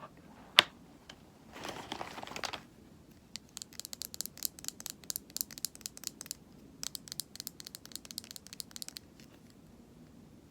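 Cosmetic items being handled close to the microphone: a sharp click about half a second in, a brief rustle around two seconds, then several seconds of rapid, crisp tapping and scratching.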